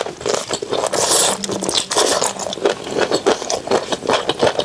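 Close-miked wet sucking, lip smacking and chewing on a sour-spicy marinated chicken foot, a quick irregular run of sticky clicks and slurps.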